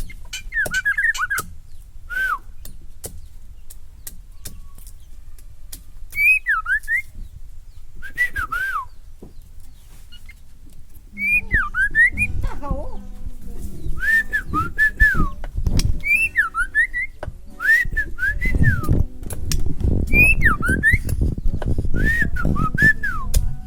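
White-rumped shama singing short, repeated whistled phrases that glide up and down, mixed with sharp clicking calls. About halfway through a low rumble with a steady hum starts underneath.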